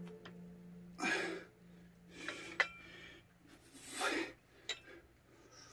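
A person breathing hard during exercise: a few short, forceful breaths a second or two apart, with a few light clicks between them. The fading tail of a low music note lies under the first two seconds.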